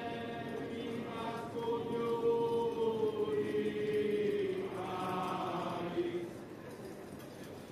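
Procession choir chanting slow, long-held notes in unison, the line sinking in pitch and stopping about six seconds in.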